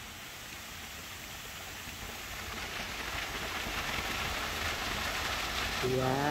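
Water splashing from small plaza fountains, a steady hiss that grows louder over the first few seconds. A woman's voice starts just before the end.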